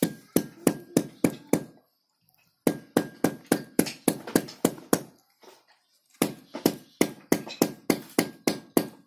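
A green bamboo tube knocked repeatedly on a concrete floor to settle its stuffing of fish and fern leaves: three runs of sharp knocks, about three a second, with short pauses between.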